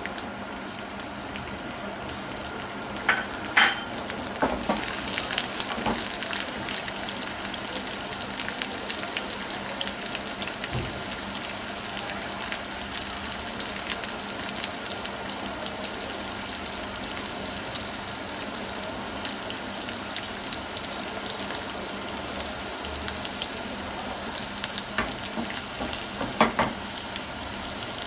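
Hot oil sizzling and crackling in a frying pan as chopped garlic, whole dried red chillies and cumin seeds fry for a tempering (baghaar). The sizzle stays steady, with a couple of sharper pops about three seconds in and again near the end.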